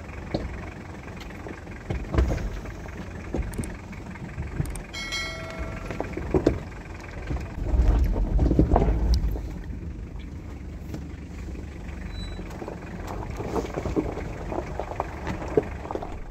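Off-road jeep rolling over a rough dirt track: a steady low rumble with scattered knocks and rattles, louder for a couple of seconds about eight seconds in. A short electronic chime about five seconds in.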